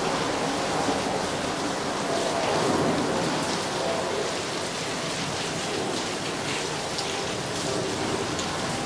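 Steady rain falling, an even hiss with scattered close drops ticking through it.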